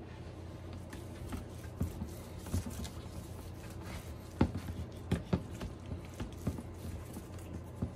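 Gloved hands rubbing and patting mustard over raw pork ribs on a metal sheet pan, giving soft, irregular slaps and squelches over a low steady hum.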